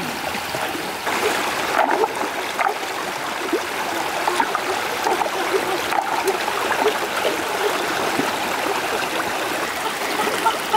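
Shallow rocky stream rushing over stones, a steady water noise, with small irregular splashes as stones are lifted out of the water.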